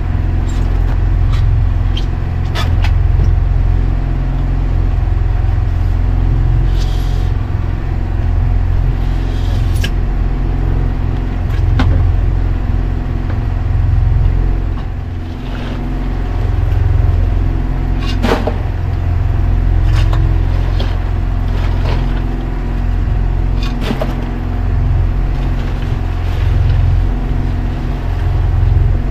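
Fishing boat's engine running with a steady low drone, with occasional knocks and clatter of ice and the lid of a cooler box being handled.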